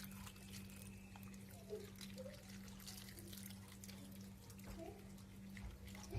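Water trickling faintly into a bowl, with scattered small drips and ticks, over a steady low electrical hum.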